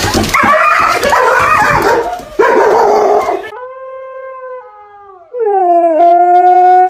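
A dog barking loudly and excitedly, then a husky howling: two long howls, the second much louder, sliding up before holding steady.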